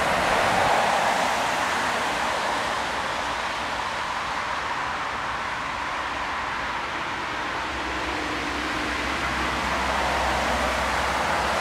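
Achenseebahn steam rack locomotive approaching under steam: a steady rushing hiss of steam, with a low rumble joining about eight seconds in.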